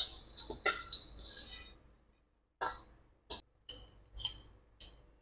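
Crisp fried noodle strips being tipped and scraped out of a metal pan into a ceramic dish: a burst of crackly scraping and rattling, followed by several separate sharp clicks and clinks.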